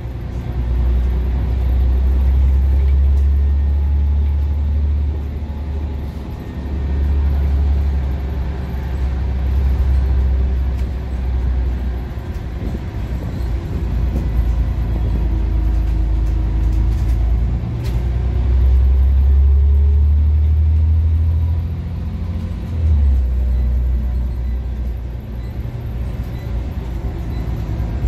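Scania OmniCity bus heard from inside the saloon on the move: a low engine drone that swells and eases several times as it pulls and backs off, with the faint whine of its ZF automatic gearbox rising and falling in pitch.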